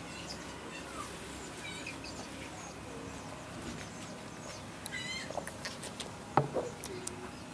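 Short, high animal calls that glide in pitch over a steady background: a few early on, then a cluster of them near the end, where the loudest, sharpest one comes.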